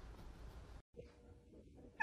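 Near silence: faint room tone, broken by a brief moment of dead silence a little before a second in.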